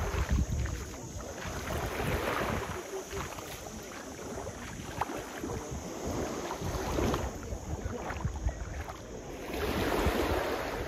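Shallow seawater splashing and swishing in uneven surges every couple of seconds, with wind rumbling on the microphone.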